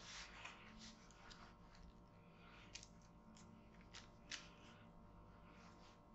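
Faint soft rustles and light pats of hands pressing shaped bread dough on baking paper, with a few small sharper clicks in the middle.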